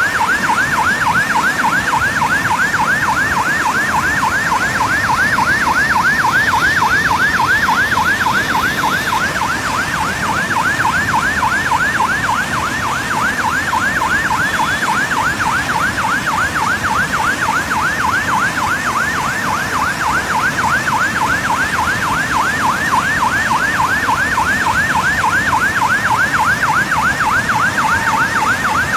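Electronic siren sounding a rapid yelp, its pitch sweeping up over and over several times a second without a break, over a steady background rush of noise.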